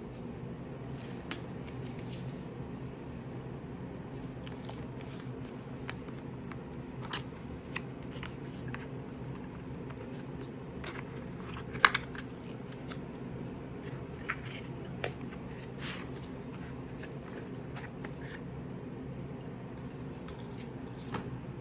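Crinkles and sharp clicks of a perfume box's packaging being handled and opened, with one loud click about halfway through, over a steady low hum.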